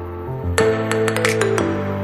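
Background music: sustained instrumental notes that change chord about half a second in and again near the end, with light percussive strikes over them.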